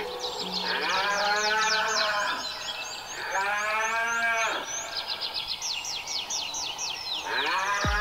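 A cow mooing: two long moos that rise and fall in pitch, each about two seconds, with a third starting near the end. Birds chirp rapidly in the background throughout.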